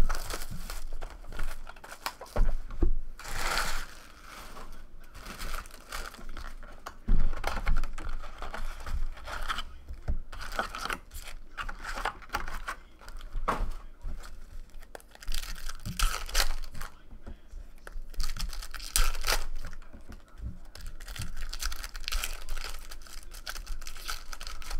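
Foil trading-card packs being torn open and crinkled by hand, in an irregular run of rips and rustles, with a few dull knocks on the table.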